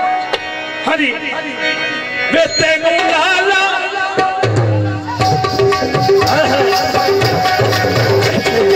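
Live Punjabi folk music: held, wavering instrumental tones at first, then about four and a half seconds in hand drums come in with a steady beat.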